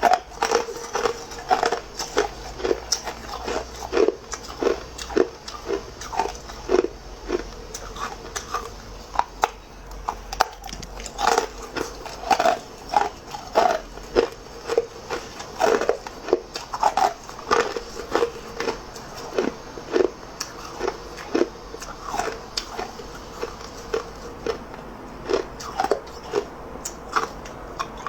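A person biting and chewing hard ice cubes close to the microphone: a string of sharp crunches, two or three a second.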